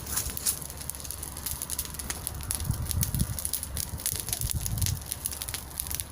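Bonfire crackling, with many sharp pops over a steady hiss, and a low rumble twice, about three and five seconds in.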